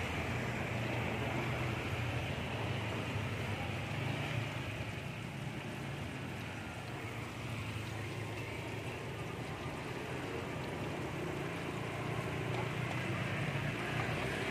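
Batter-coated chicken pieces deep-frying in a wok of hot oil: a steady bubbling sizzle over a low, steady rumble.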